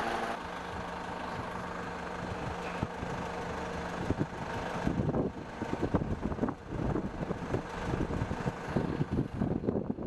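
An engine runs with a steady hum. About halfway through, it turns to an uneven rumbling with knocks.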